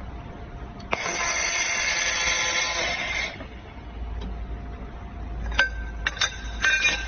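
Handheld laser welding gun firing on a steel sheet corner joint for about two seconds: a hiss with a steady buzzing whine in it, starting about a second in. Near the end come several sharp metal clinks as the sheets are handled.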